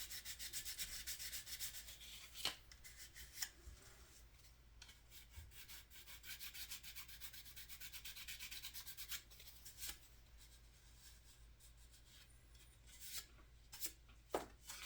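Sandpaper rubbing back and forth over dried putty on a plastic 1/25-scale model car body, dry sanding in runs of quick short strokes with pauses between, and a few light clicks.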